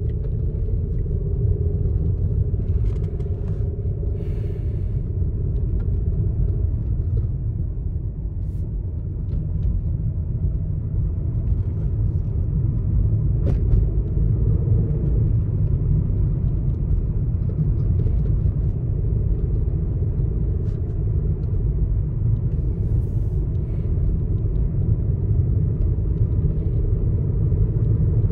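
Car heard from inside the cabin while driving: a steady low rumble of engine and road noise with a faint wavering engine drone, and a few light clicks.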